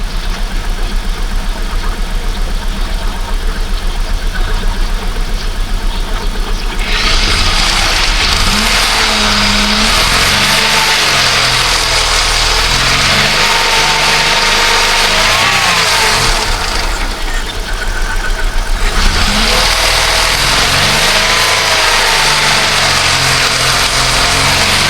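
Holden VX Commodore's 3.8-litre Ecotec V6 idling steadily as it warms up after years of sitting. About seven seconds in, a loud rushing hiss joins the engine sound. The hiss breaks off for a couple of seconds past the middle and then returns.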